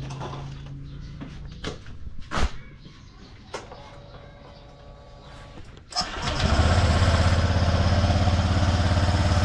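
A few light clicks and knocks. About six seconds in, a sharp click, then a Honda Click V3 scooter's single-cylinder engine starts and runs at a steady idle, with an open mushroom air filter fitted to its CVT air intake.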